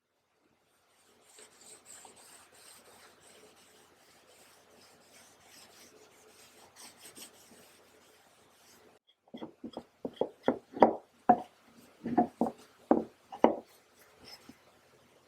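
Hand tool scraping or filing on wood, faint and continuous at first. Then, about nine seconds in, it gives way to about a dozen short, sharp, louder strokes, roughly two a second.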